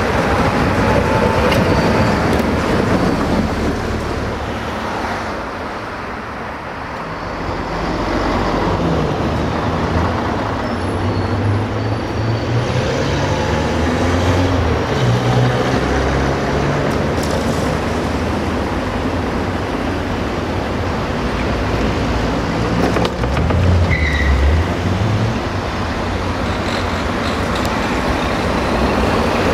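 Tatra trams running on street track amid road traffic: an articulated Tatra KT4D passes, then a Tatra T4D tram with its B4D trailer comes up and runs past. Low motor tones rise and fall over a steady traffic noise.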